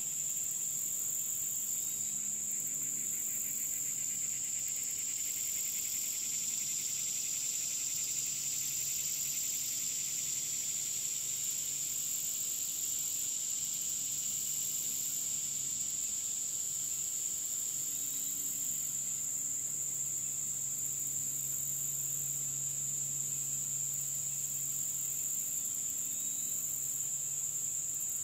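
Steady, high-pitched chorus of insects trilling without a break, with a second insect's faster pulsing buzz, a little lower in pitch, that swells up about three seconds in and fades out after about fifteen seconds.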